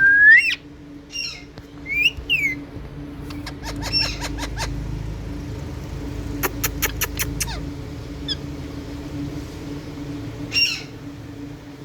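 Indian ringneck parakeet giving sharp rising squawks and short calls, the loudest right at the start, with a quick run of rapid screeches about six and a half seconds in. A steady low hum runs underneath.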